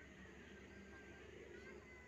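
Near silence: faint outdoor background with a steady low hum.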